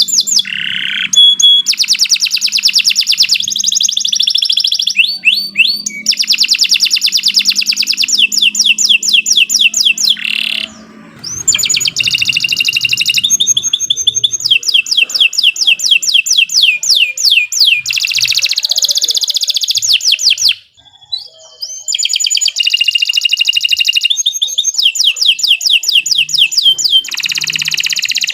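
Domestic canary singing a long, loud song of fast repeated trills, phrase after phrase, with brief breaks about 11 and 21 seconds in.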